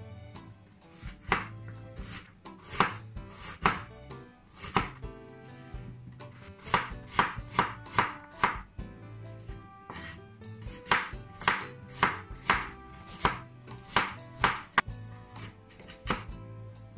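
Broad-bladed kitchen knife slicing peeled carrots into rounds on a wooden cutting board, each cut a sharp knock of the blade on the wood. The cuts come in uneven runs of about one to three a second.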